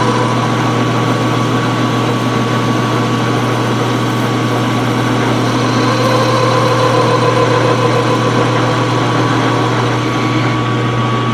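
Metal lathe running with a steady motor hum while the tool takes a slow-feed turning cut on an aluminum workpiece, at a spindle speed turned down to stop chatter.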